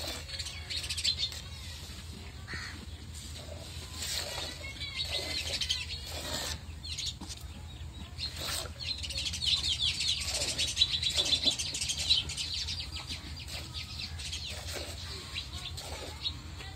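Small birds chirping busily, loudest about midway, over the soft splashing squirts of hand-milking as streams of milk hit the froth in a steel bucket.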